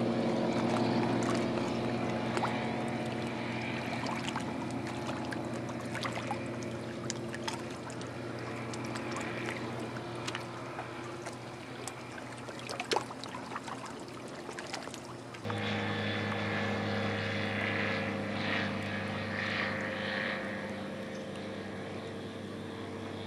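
The Rotax 912 flat-four engine and three-blade propeller of a Bush Caddy R-80 floatplane droning steadily in the distance, slowly fading. About fifteen seconds in the drone jumps abruptly louder and settles at a slightly different pitch.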